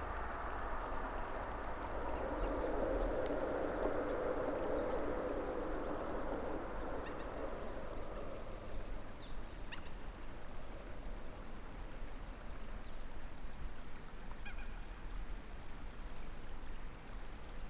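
Strong wind gusting, swelling for a few seconds and then easing, with a low rumble of wind on the microphone and many short, high chirps above it.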